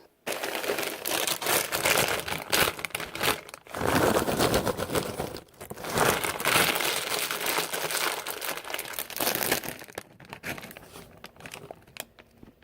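A plastic snack bag of hot Cheetos crinkling as it is handled and rummaged through. The crinkling is dense, with a couple of short breaks, and dies down for the last couple of seconds.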